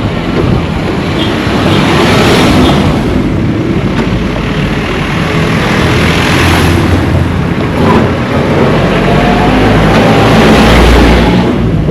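Motor vehicles passing close by on a street: engine and tyre noise swelling up and fading away about three times.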